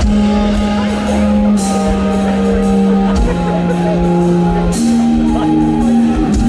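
Live rock band playing loud through a PA: long held chords that change about every second and a half, with a cymbal crash about every three seconds.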